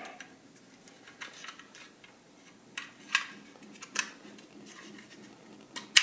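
Scattered light clicks and taps of a 2.5-inch SSD, its SATA connector cable and a metal drive caddy being handled and fitted together, with the loudest, sharpest click near the end as a part snaps into place.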